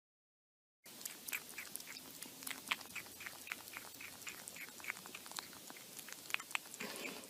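A pet chewing something crunchy: a run of quick, sharp crunches, a few a second, starting about a second in.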